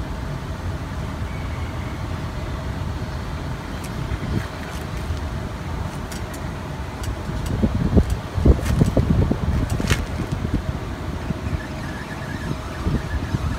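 Steady low rumble of wind on the microphone. About halfway through come scattered sharp clicks and a run of louder knocks and rustles from close handling.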